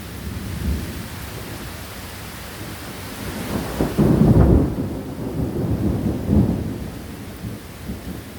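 Thunder rumbling after a close lightning strike, building to its loudest about four seconds in and rolling on in further swells, over the steady hiss of heavy rain.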